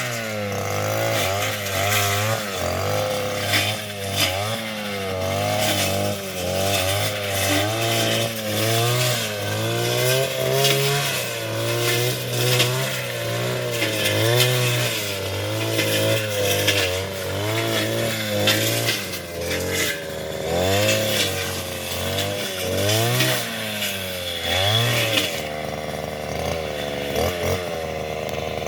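Small petrol engine running and being revved up and down over and over, the pitch rising and falling every second or two.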